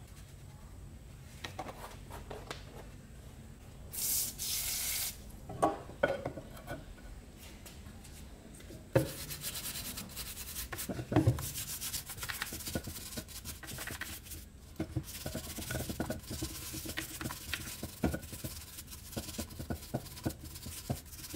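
A brush scrubbing the housing of a Makita 5012B electric chainsaw: a scratchy rubbing dotted with small knocks that runs steadily from about nine seconds in. A short hiss comes about four seconds in.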